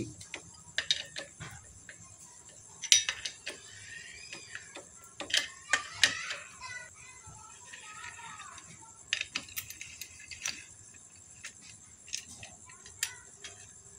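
Irregular metallic clicks and taps of a socket tool working the clutch spring bolts on a Honda Verza 150, as the bolts are loosened a little at a time in turn while the springs are still under pressure.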